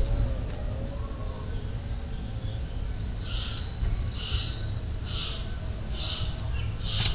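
Birds chirping and whistling in the park's trees over a low background rumble. From about three seconds in, one call repeats about once a second, and a brief sharp noise comes right at the end.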